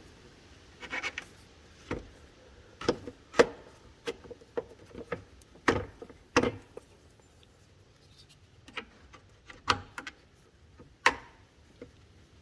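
Irregularly spaced sharp clicks and light knocks of hand work on the radiator's plastic drain petcock as it is put back in.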